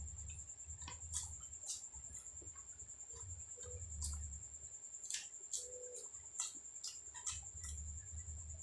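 Close-miked chewing and mouth sounds of a person eating: wet smacks and clicks at irregular intervals over a low, intermittent chewing rumble. A steady high-pitched whine sits underneath throughout.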